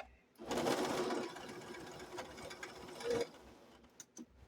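Electric sewing machine stitching a quilt, running for about three seconds, loudest in its first second, then stopping; two light clicks follow near the end.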